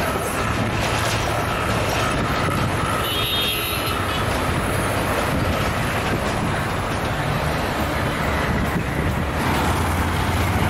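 Diesel-hauled passenger train running along the line: a steady rumble of wheels on the track with a low engine drone that grows stronger near the end.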